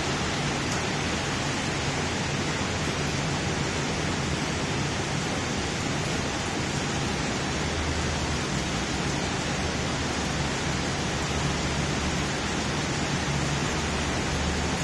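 Heavy rain falling: a steady, even rush that does not let up.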